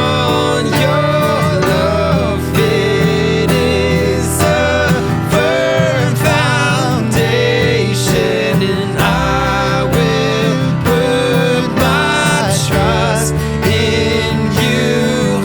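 Worship band playing: guitar and a wavering melody line over sustained low bass notes.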